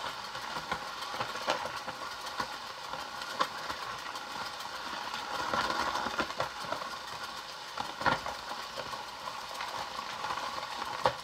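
Plastic toy ice cream cake maker being hand-cranked, a steady rattling churn with many small clicks from the turning mechanism and the mix inside. It turns without much resistance.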